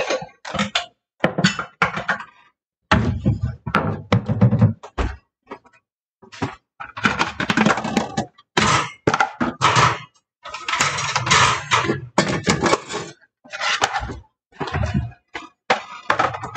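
Dishes clinking and clattering and wooden cabinet doors knocking as dishes are put away into kitchen cabinets: a string of short, separate knocks and clatters.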